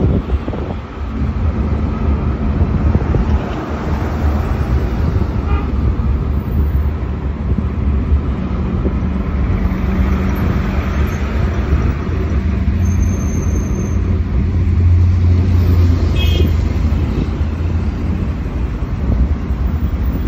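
Steady road noise of a car driving along a city street: a low engine and tyre rumble, with other traffic going by.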